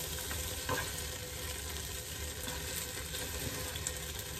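Chunks of beef sizzling steadily as they brown in a hot stockpot, with tongs stirring them; a brief click about a second in.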